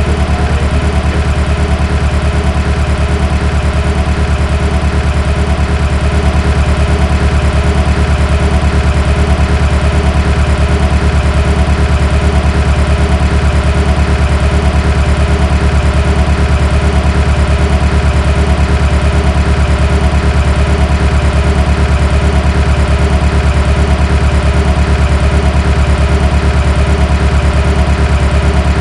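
Simulated car engine idling steadily, played by a car-diagnostics training simulator. The engine has a misfire set by fault code P0354, an ignition coil D (cylinder 4) circuit fault.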